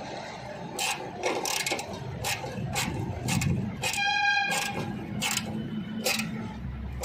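Irregular metallic clicks and taps of a small socket tool tightening the earth-wire screw by the scooter's battery. A vehicle horn sounds once, briefly, about four seconds in, and is the loudest sound.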